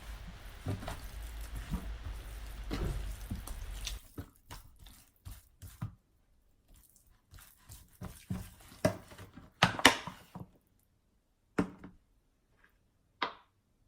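Kitchen handling sounds from marinated chicken pieces being worked in a bowl: scattered wet squelches and short knocks. A low background hum stops about four seconds in.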